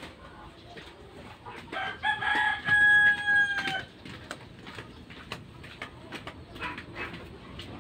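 A rooster crowing once, a single long call starting about two seconds in and falling slightly in pitch at its end. Light scattered clicks and knocks sound around it.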